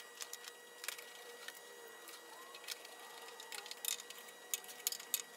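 Light, scattered clicks and taps of a computer monitor being handled and fitted against a swing arm's mounting plate, a few sharper knocks near the end, over a faint steady high tone.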